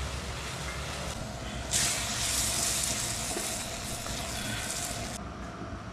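Beef sizzling loudly in a hot wok as it is stir-fried, the hiss starting suddenly about two seconds in and cutting off about five seconds in, over a low steady rumble.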